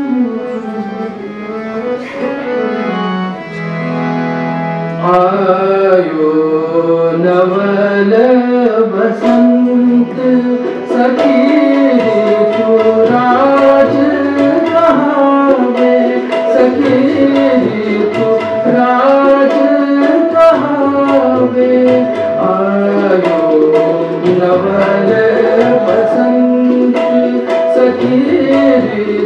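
A man singing to harmonium and tabla: the harmonium holds steady notes under the voice's gliding melody while the tabla keeps time. The music grows louder about five seconds in, when the tabla strokes become stronger.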